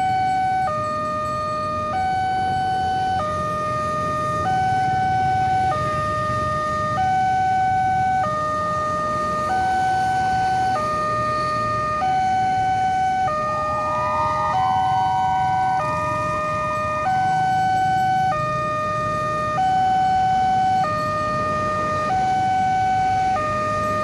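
Railway level-crossing alarm sounding its electronic two-tone warning, switching between a higher and a lower tone about every second and a quarter, the signal that a train is approaching.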